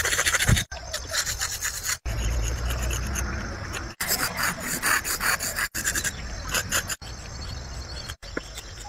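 A black drawing stick scraping over concrete pavement in fast back-and-forth shading strokes, heard in short stretches that cut off abruptly every second or two.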